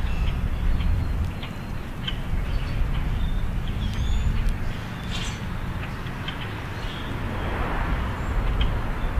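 Steady low traffic rumble with scattered short bird chips and squeaks over it, a brief rising whistle about four seconds in, and a passing rush of noise near the end.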